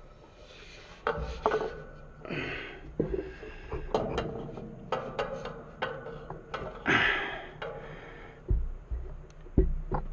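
Hand tools clicking, knocking and scraping against the air compressor's metal fittings in an irregular string of sharp taps, with a couple of short rushing noises.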